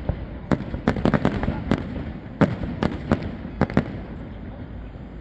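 Aerial fireworks bursting in a quick, irregular series of sharp bangs, about a dozen in four seconds. The bangs thin out and stop near the end.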